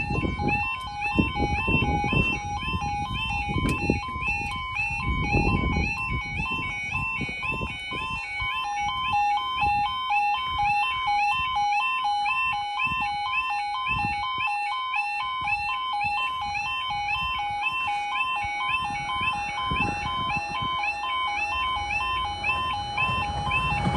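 Level crossing warning alarm sounding continuously: a rapid, repeating two-tone warble, the yodel alarm that warns road users while the barriers are down and a train is approaching. A gusty low rumble of wind noise runs under it, strongest in the first few seconds.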